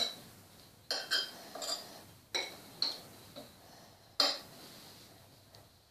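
Light clinks and taps on crockery, about eight at irregular intervals, the sharpest at the start and about four seconds in, as potato slices are laid out one by one on a plate.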